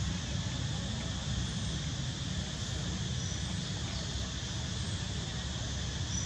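Steady outdoor background: wind rumbling and fluttering on the microphone, with a constant high insect drone behind it.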